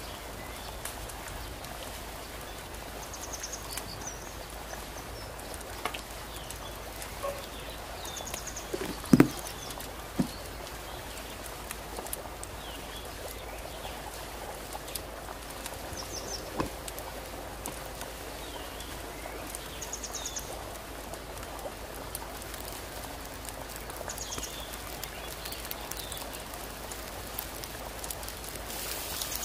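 Food sizzling steadily as it cooks, with two sharp knocks about nine and ten seconds in and faint high chirps every few seconds.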